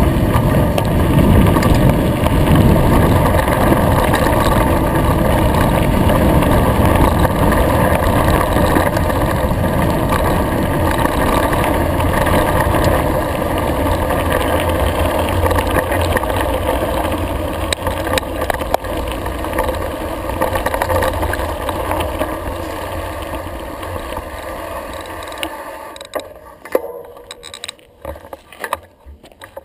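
Mountain bike running fast down a gravel road: a steady rushing noise of wind on the GoPro microphone, tyres on gravel and the bike rattling. It fades near the end as the bike slows, leaving a few separate clicks and knocks.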